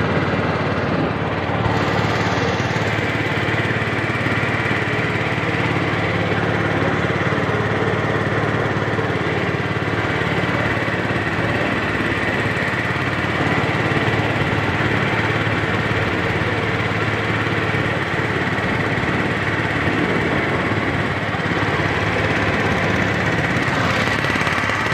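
Engine of a wooden river boat running steadily while under way, a loud, even mechanical drone with no change in speed.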